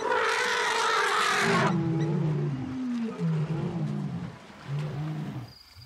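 Lions attacking an elephant, with animal cries and growling. A loud, harsh scream lasts about a second and a half. Then come lower, drawn-out calls that bend up and down in pitch and stop shortly before the end.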